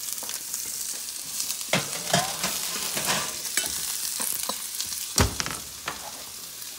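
Onions sizzling in a frying pan, a steady hiss, with a few metal clatters as a foil-lined baking tray goes onto the oven rack and a heavy thump a little after five seconds in as the oven door shuts.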